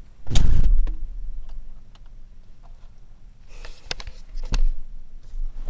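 A 1988 Ford Ranger's door being pulled shut with a heavy thump about half a second in, followed by a few small clicks near the end.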